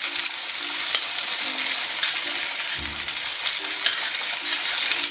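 Pasta and potato soup boiling in a stainless steel pot on a gas burner, a steady crackling hiss of bubbling with small pops. A spoon stirs through the thick soup near the end.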